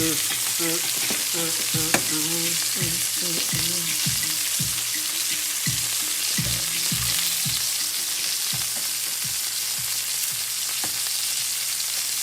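Chicken breasts frying in a pan over high heat, sizzling steadily as the Hennessy glaze with garlic and rosemary reduces and thickens, with scattered pops.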